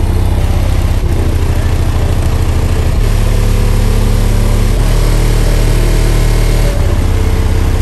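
Very loud car-stereo subwoofer bass, deep throbbing notes that jump to a new pitch every second or two, strong enough that it vibrates the whole parking lot.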